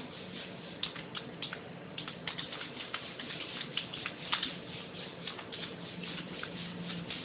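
Computer keyboard typing: faint, quick, irregular key clicks over a low steady hum.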